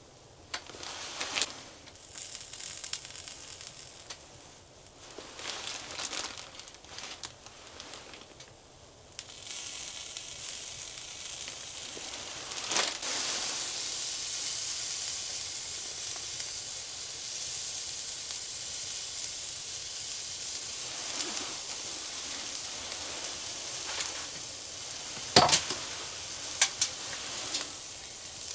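Slices of Spam frying in a pan. Scattered spitting and crackling for the first several seconds, then a steady sizzle from about nine seconds in, with a few sharp knocks, the loudest near the end.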